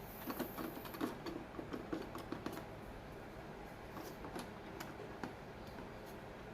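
Quick, irregular clicks and light metallic taps of server hardware being handled, as the CPU heatsink is fitted back over the processor socket. They come in a cluster in the first couple of seconds, then a few more later on.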